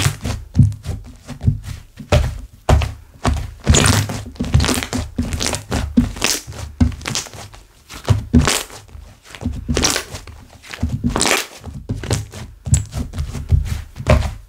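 Hands squishing, pressing and folding thick slime, giving irregular wet thuds and squelches with crackly air-bubble pops, a few every second.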